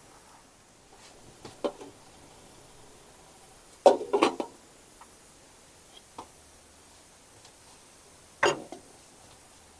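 A few short knocks and clatters in a small room: a cluster of them about four seconds in is the loudest, with single knocks before and near the end.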